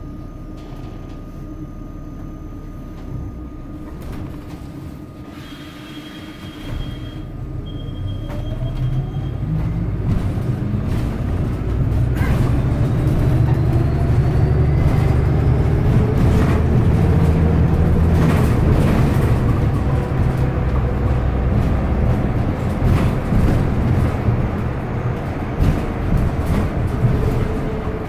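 Inside a San Francisco Muni bus: a low steady hum at first, then about six seconds in the bus pulls away. Its drive drone builds over several seconds with a slowly rising whine, then runs on loud and steady with scattered interior rattles.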